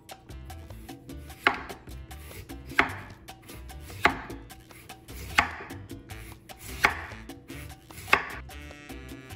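Kitchen knife slicing a peeled Korean radish into thin rounds on a wooden cutting board: six evenly spaced cuts, about one every second and a third.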